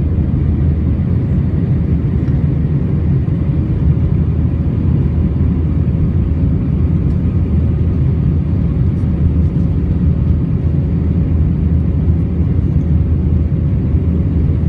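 Cabin noise of an Airbus A319 in its climb after takeoff: the jet engines and rushing air make a steady, deep rumble, with a steady hum over it.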